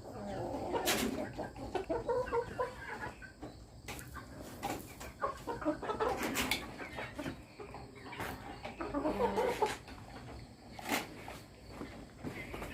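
Chickens clucking in short, repeated bursts, with a few sharp clicks in between.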